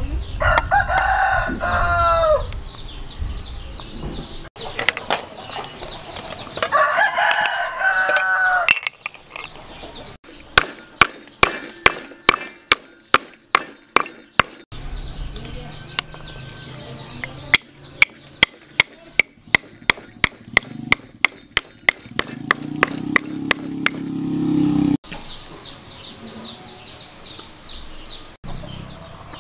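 A rooster crows twice in the first several seconds. Then come two runs of rapid, sharp knocks, about three to four a second, as a sea snail's shell is cracked open with a tool on a wooden chopping block.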